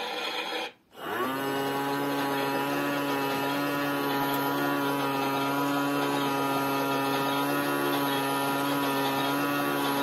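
The small electric drum motor of a Theo Klein Miele Softtronic toy washing machine starting up about a second in, rising quickly in pitch, then running with a steady whine as the drum turns the water and cloth.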